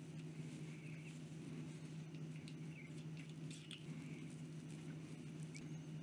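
Faint clicks and small squeaks of a Penbbs 500 acrylic resin piston-filler fountain pen being handled and its parts put back together, a few scattered ticks over a steady low hum.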